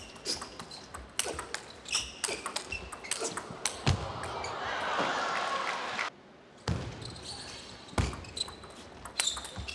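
Table tennis rally: the celluloid-plastic ball clicking off the paddles and the table in an irregular run of sharp ticks, with a few heavier thumps of footwork and brief high squeaks of shoe soles on the court floor.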